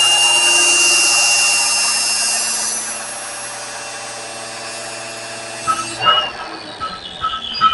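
Electric grinder running with a steady high whine while grinding a steel forged tool, with a dense hiss that weakens over the first few seconds. The grinding stops abruptly about six seconds in, and a few light ticks follow.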